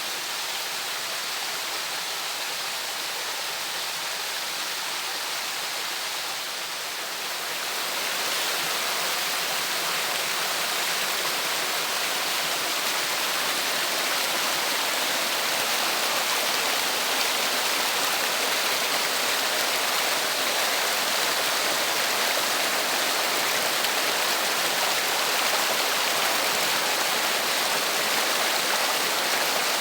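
Water rushing steadily down a cascade. It grows a little louder about seven seconds in.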